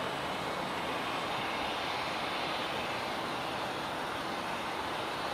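Jet airliner engines producing a steady, even rushing noise.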